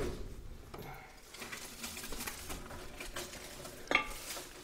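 A wooden door with glass panels pushed open with a thump at the start, then footsteps rustling and crackling through dry leaves and dead brambles, with one sharp snap about four seconds in.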